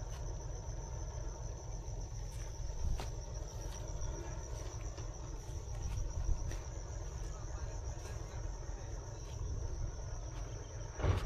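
Crickets chirring in one steady high-pitched trill over a low rumble, with a few faint ticks and one louder knock near the end.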